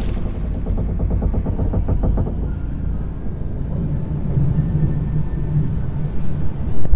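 A deep, steady low rumble with a fast, even throb for the first couple of seconds and a low hum rising out of it in the middle.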